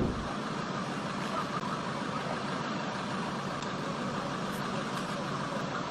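Steady motor vehicle noise: an engine running with road or traffic noise, even in level throughout.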